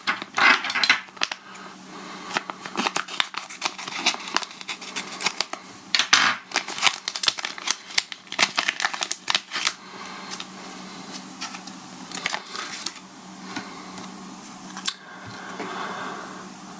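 Crinkling and rustling of a plastic parts bag being handled and opened by hand, dense for about the first ten seconds and then only now and then, over a steady low hum.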